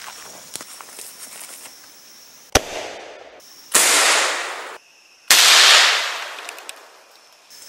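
Three blasts from a Mossberg 500A 12-gauge pump shotgun, about two and a half, four and five and a half seconds in; the last two are the loudest, each echoing off through the woods and dying away over a second or more. Before them, faint footsteps in leaf litter.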